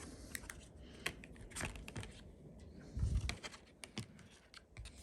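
Scattered light clicks and taps as a phone and its accessories are handled, with a soft thump about three seconds in.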